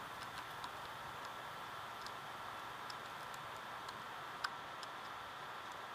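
Scattered small ticks and clicks of a screwdriver working the drive's mounting screws, with one sharper click about four and a half seconds in, over a faint steady hiss and hum.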